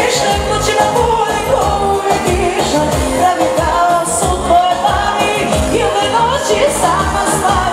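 A woman singing pop into a microphone with a live band behind her, including electric guitar, over a steady beat.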